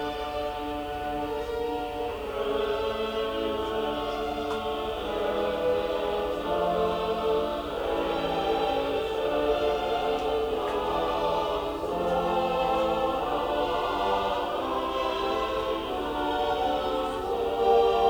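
Choral music with long held sung notes, played back through a Samsung Bottle Speaker wireless speaker.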